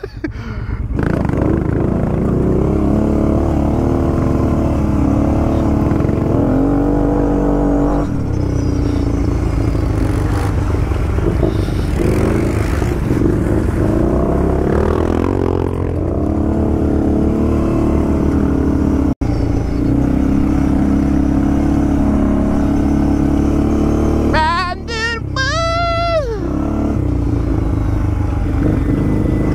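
ATV engine running under throttle while riding a dirt trail, its pitch rising and falling as the throttle is worked. The sound drops out for an instant about two-thirds of the way through.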